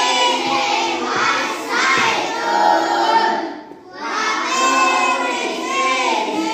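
A class of schoolchildren chanting together in unison in a sing-song voice. There are two long phrases, with a short break just before four seconds in.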